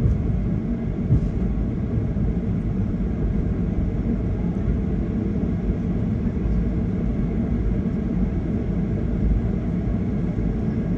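Steady low rumble of airliner cabin noise from the jet's engines and airframe.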